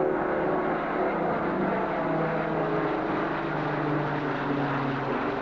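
Avro Shackleton's four Rolls-Royce Griffon V12 piston engines and contra-rotating propellers droning as the aircraft flies low overhead: a loud, steady drone of several tones.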